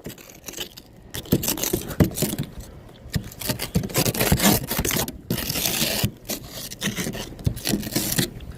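Ice being scraped on a car window, in a run of rough, irregular strokes.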